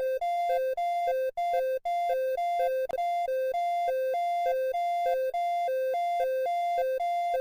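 Electronic two-tone emergency alert alarm, a buzzy tone switching back and forth between a higher and a lower pitch about twice a second.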